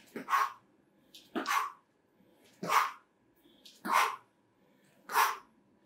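Short, forceful exhalations, one with each strike of a rear-hand, front-leg drill, coming about every 1.2 seconds in an even rhythm.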